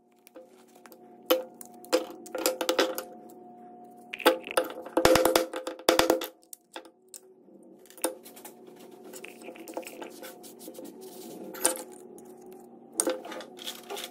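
Sharp irregular knocks and clicks of a plastic plug-in power supply case being broken open and its parts handled on a wooden workbench, with a quick run of hard blows about five seconds in.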